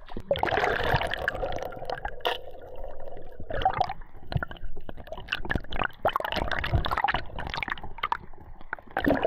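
Sea water sloshing and splashing around a camera at the ocean surface, gurgling as it dips underwater, with many short irregular splashes.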